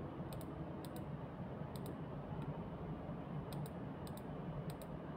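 Computer mouse clicking: about six short clicks at uneven intervals, each a quick double tick of button press and release, over a steady low room hum.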